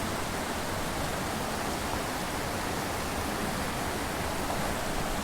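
Small mountain creek rushing over and between boulders: a steady, even rush of water.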